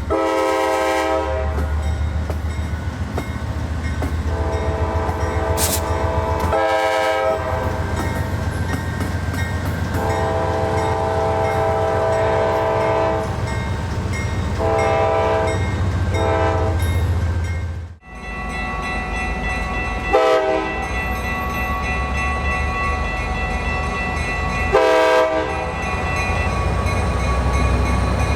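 Nathan K5LA five-chime locomotive air horn sounding the grade-crossing signal of long, long, short, long, then two more blasts, over the low rumble of the passing train. After a cut about 18 seconds in, a second train gives two short horn blasts about five seconds apart.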